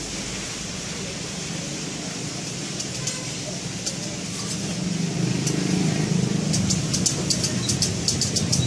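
Street traffic noise with a motor vehicle's engine hum growing louder from about halfway. A quick run of sharp clicks comes near the end.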